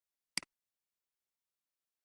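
Dead silence broken once, about a third of a second in, by a short sharp double click: a computer mouse button pressed and released.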